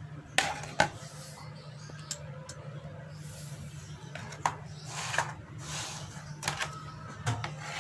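Scattered light knocks and rubbing of a plastic bowl, plastic cutting board and knife being handled on a tabletop, over a steady low hum.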